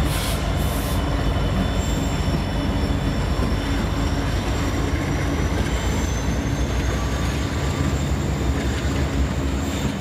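Freight train passing at speed: diesel locomotives running as they go by, then covered hopper cars rolling past with a steady rumble of wheels on rail. A thin, high wheel squeal rides over it.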